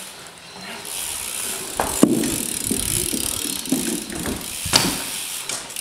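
BMX bike rolling over paving, tyres rattling steadily, with sharp knocks about two seconds in and again near five seconds.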